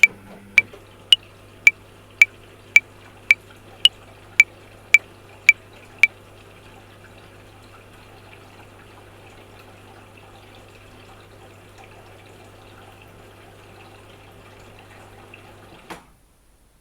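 Metronome clicking at 110 beats a minute, every fifth click accented, over a washing machine running with a steady hum and water sounds. The clicks stop about six seconds in and the machine carries on alone. Near the end there is a knock, and then the machine sound cuts out.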